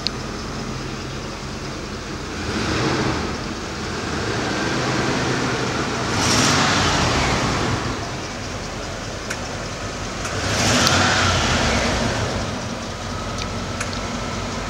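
2001 Bentley Continental R's turbocharged 6.75-litre V8 idling, blipped up three times a few seconds apart, each rev lasting a second or two before settling back to idle.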